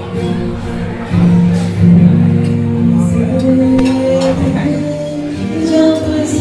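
Music with singing and guitar, its notes held steady.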